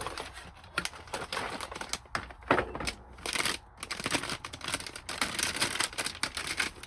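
Clicks and rustling from a graphics card being handled for fitting into a desktop PC: a quick run of irregular small knocks and scrapes of plastic and metal.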